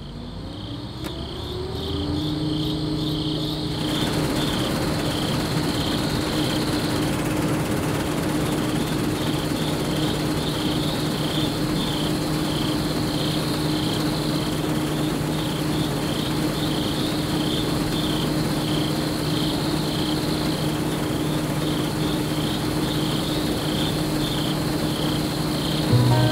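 Crickets chirping in an even pulsing rhythm over the steady, droning hum of a combine harvester's engine, fading in over the first few seconds.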